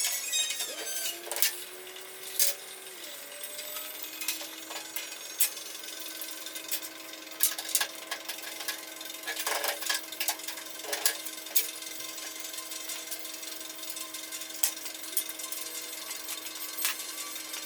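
A small power-tool motor winds up about half a second in and then runs at a steady pitch, with scattered sharp metallic clicks and clinks of parts being worked.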